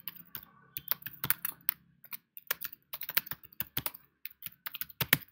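Typing on a computer keyboard: a run of quick, irregular keystrokes with a short pause about two seconds in, entering login details.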